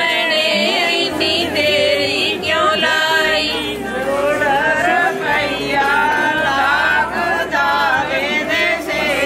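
Background music: a Punjabi love song in a wordless passage, a voice gliding and ornamenting over held low bass notes.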